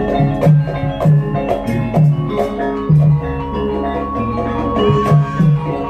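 Javanese gamelan playing dance music: bronze metallophones strike a repeating melodic pattern over drum strokes. A held high note joins about four seconds in.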